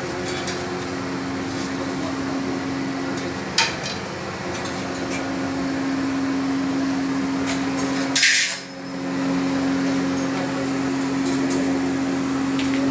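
Steady hum of running machinery with a few sharp metallic knocks. About eight seconds in there is a short, louder hiss-like burst.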